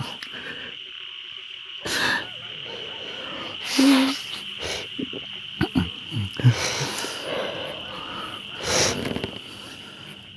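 Sobbing and sniffling breaths, about four louder ones spaced a couple of seconds apart, over a steady high-pitched chorus of night insects.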